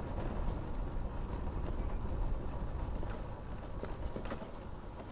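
Low, uneven rumble of a Bajaj Dominar 250 motorcycle being ridden, with a few scattered knocks, growing quieter toward the end.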